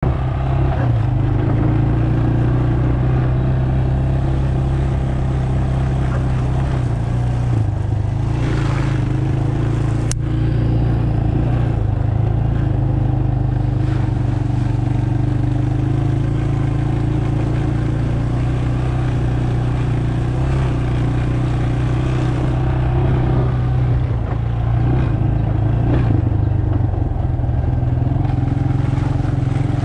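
Dirt bike engine running at a fairly steady speed while riding, its pitch shifting only a little up and down. A single sharp click about ten seconds in.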